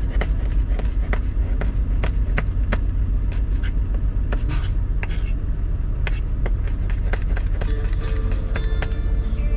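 Knife chopping red bell peppers on a wooden cutting board: sharp, irregular knocks, about three a second, over a steady low rumble.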